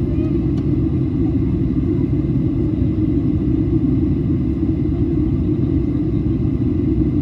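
Steady low roar inside the cabin of a Boeing 737-700 in flight: the noise of its CFM56-7B engines and the airflow over the fuselage.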